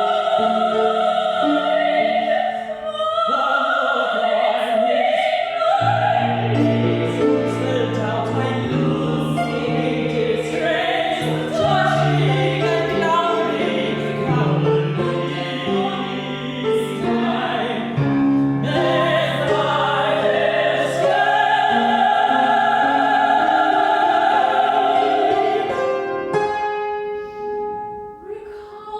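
Operatic singing with piano accompaniment, the voices holding long notes over the piano; the music falls away near the end.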